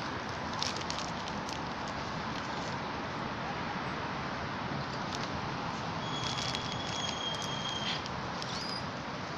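Steady background hiss with scattered faint crackles as a crab-eating macaque eats potato chips from the bag. About six seconds in, a high steady whistling tone sounds for about two seconds.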